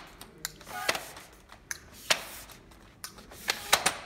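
Telesteps Prime aluminium telescopic ladder being pulled out section by section, with a series of sharp metallic clicks as each section locks into place, several close together near the end.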